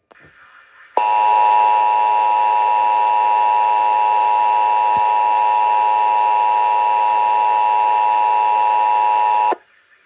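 Emergency Alert System attention signal, the steady two-tone alarm of 853 and 960 Hz played together. It starts abruptly about a second in, holds for about eight and a half seconds and cuts off sharply. It marks the start of an EAS alert, here the monthly test.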